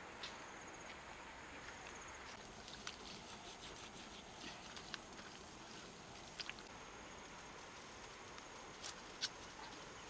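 Wood cooking fire crackling faintly: a few scattered clicks over a steady low hiss, the sharpest about nine seconds in.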